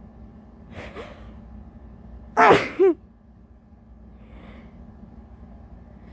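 A woman's sneeze during a sneezing fit: a quick breath in as it builds about a second in, then one loud sneeze about two and a half seconds in, ending in a short second voiced burst. A faint breath follows.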